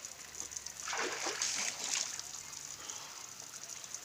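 Water splashing and pouring over a person bathing while standing in a tub of water, heaviest for about a second starting a second in.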